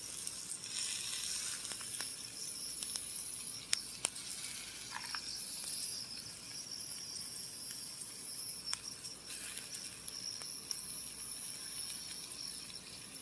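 Bratwursts sizzling faintly on a small grill, with a few light clicks and pops. A steady high buzz of insects runs underneath.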